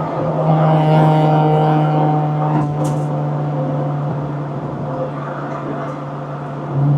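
Acura Integra's four-cylinder engine heard from inside the cabin while cruising, a steady low drone at constant revs. It eases off a little a few seconds in and swells back up just before the end.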